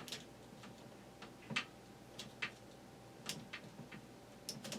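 Light clicks and taps of small parts being handled during a box fan power switch replacement, about a dozen scattered irregularly, a few of them louder.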